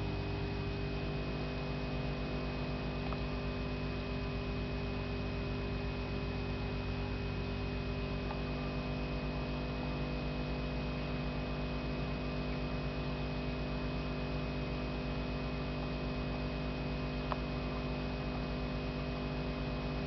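Steady electrical mains hum with a thin, steady high-pitched whine over it, and a single faint click near the end.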